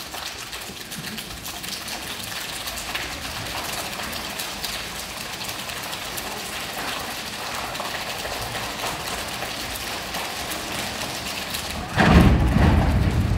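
Audience clapping, an uneven patter of many hands with no steady beat. Near the end a sudden louder, deeper sound cuts in.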